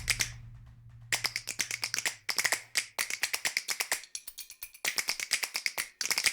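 Runs of rapid, dry percussive clicks, about eight to ten a second, broken by short pauses, with a low hum that fades out over the first three seconds.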